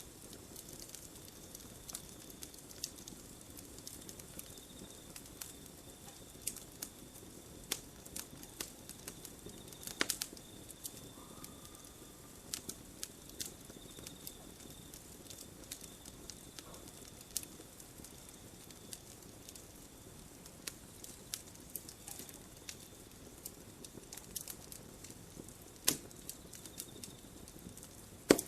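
Campfire crackling: an irregular stream of small sharp pops and snaps, with a few louder pops about ten seconds in, near the end, and right at the close.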